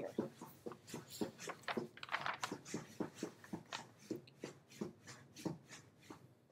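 Light clicks and taps from working the computer's pointer, a quick uneven run of about three a second, with a brief rustle about two seconds in.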